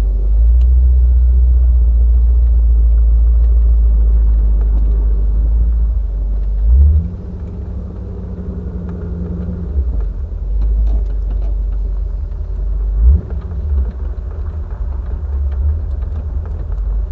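A 4.6-litre V8 TR7 being driven along, with a heavy low engine and road rumble. The rumble is loudest for the first seven seconds, eases after a brief loud surge about seven seconds in, and another short surge comes about thirteen seconds in.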